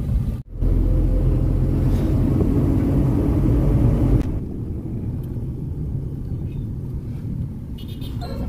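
Steady low road and engine rumble of a moving vehicle heard from inside the cabin. It cuts out briefly half a second in and drops a little in level about four seconds in.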